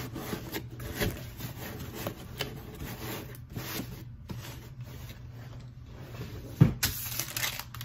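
Cardboard packaging being handled: rustling, rubbing and scraping in quick irregular strokes, with one louder thump about two-thirds of the way through as something is set down.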